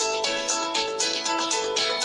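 Background music: a tune of short repeated notes over a steady beat.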